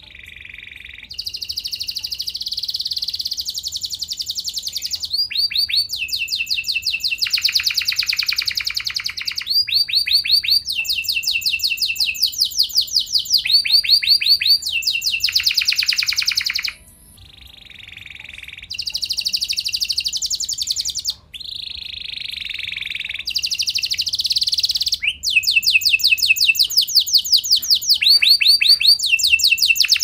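Domestic canary singing a long, unbroken song of fast trills, one run of rapidly repeated notes after another, each lasting a second or two before the bird switches to the next. The song dips briefly just past halfway, then carries on at full strength.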